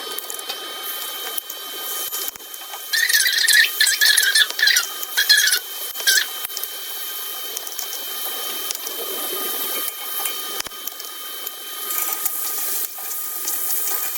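Seasoned chicken necks sizzling in a hot pot, a steady hiss, with squeaky scraping bursts from stirring the pot a few seconds in.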